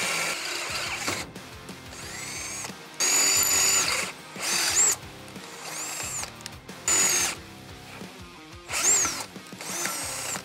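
Cordless drill with a 5/16-inch bit drilling holes through the metal plate of a mini bike frame. It runs steadily at first, then in about six short bursts, its whine rising and falling in pitch with each.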